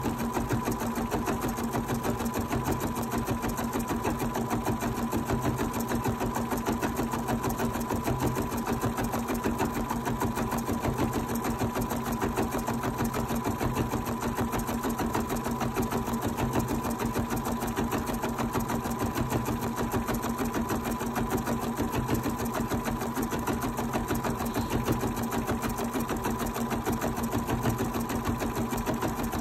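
Bernina 790 sewing and embroidery machine stitching out an embroidery design in the hoop: a steady, rapid run of even needle strokes over a constant motor hum, with no change in pace.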